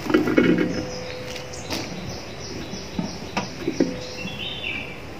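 A few light knocks as potatoes are handled in a bowl for washing, with a short run of bird chirps in the background near the end.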